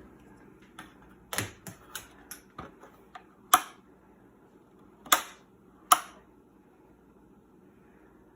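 Irregular sharp clicks and snaps from working on a washing machine's water-level pressure switch and its air-tube fittings, about ten in all, the three loudest coming between about 3.5 and 6 seconds in.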